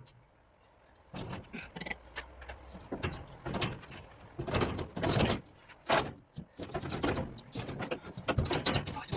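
Irregular knocks, scrapes and rattles of hand work on sheet-metal vehicle body panels, starting about a second in.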